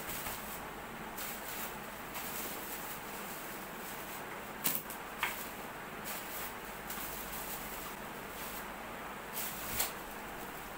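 Speaker packaging being handled during unboxing, over a steady background hiss: two sharp clicks about half a second apart near the middle, and another near the end.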